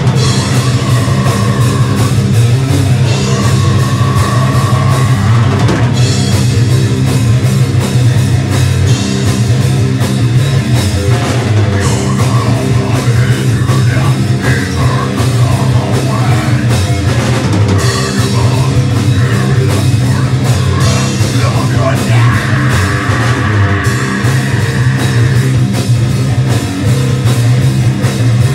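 A live heavy metal band playing loud: a drum kit hit hard and densely under guitar, with no break.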